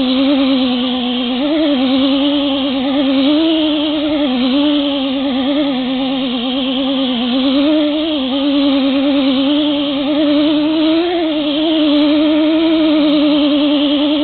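Electric buffer spinning a wool buffing pad loaded with polish against an aluminum wheel rim: a steady, loud motor hum whose pitch wavers slightly as the pad is pressed on and eased off.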